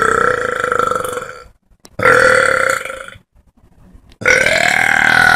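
A woman belching three long, loud belches in a row, with short pauses between them.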